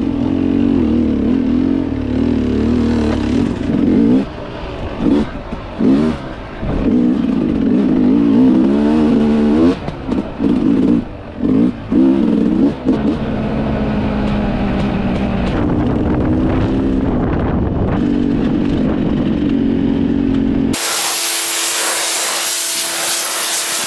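Dirt bike engine running under way, revving up and down with the throttle, then holding a steadier note. About 21 seconds in it cuts off suddenly into a loud steady hiss.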